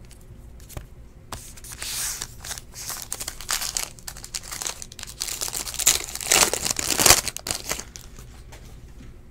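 Gold foil trading-card pack wrapper crinkling and tearing as it is ripped open by hand, a crackly rustle that starts about a second in, is loudest around six to seven seconds in and dies away near the end.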